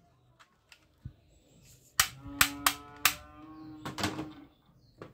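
Hard plastic toy guns being handled on a tabletop. About two seconds in come a few sharp clicks over a low steady tone that lasts about two seconds, then a quick cluster of knocks near the end as a gun is moved on the table.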